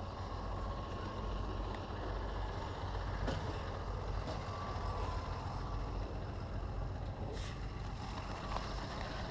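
Heavy truck or vacuum machine running steadily with a low rumble.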